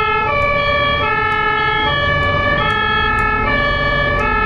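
German ambulance two-tone siren (Martinshorn) sounding, switching back and forth between two pitches, over a low rumble of road traffic.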